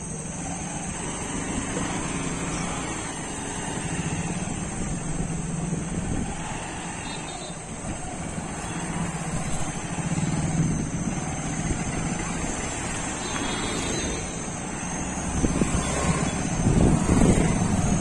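Motorcycle engine running as it passes along the lane, its note swelling and fading several times, with low rumble near the end.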